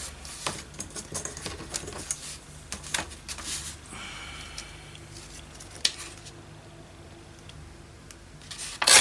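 Sheet-music paper being handled on a work table: light rustles and small taps, then a couple of louder rasping strokes near the end as the paper is torn or creased.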